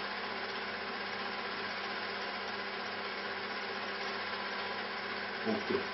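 Steady background noise: an even hiss with a faint low hum, like a machine running without change.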